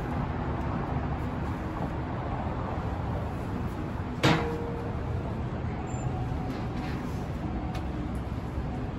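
Steady downtown street traffic noise, with one sharp knock about halfway through that rings briefly.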